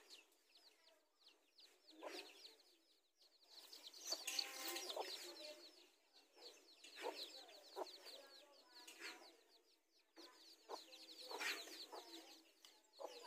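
Faint chicks peeping continually with quick, falling high cheeps, while a mother hen clucks low every few seconds.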